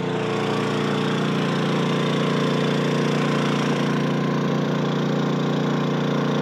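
An engine running steadily at one speed, an even low hum that does not change.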